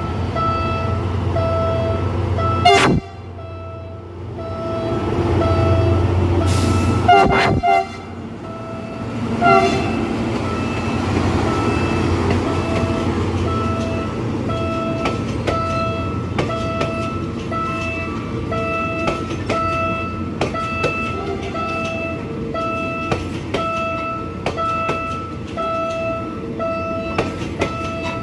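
Level-crossing warning bell ringing steadily, about once a second, over the low rumble of a PNR INKA CC300 diesel-hydraulic locomotive. Later, train wheels clatter over the rails as the cars roll through the crossing. The sound breaks off abruptly twice in the first eight seconds.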